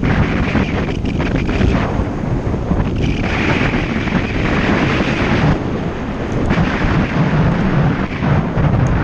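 Wind buffeting the microphone of a camera on a moving bicycle: a loud, continuous rumble, with a brighter hiss added from about three to five and a half seconds in.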